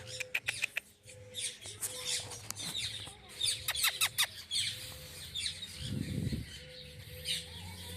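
Parrots and other birds chirping and squawking in short, sharp calls, coming in quick clusters, with a brief low rumble about six seconds in.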